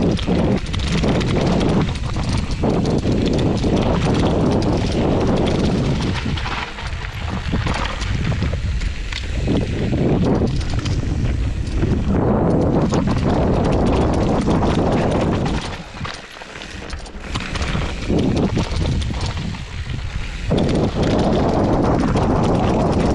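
Mountain bike riding down a dirt singletrack: tyres rumbling over dirt and stones and the bike rattling over bumps, with wind on the microphone. The noise eases briefly a few times, most clearly about 16 seconds in.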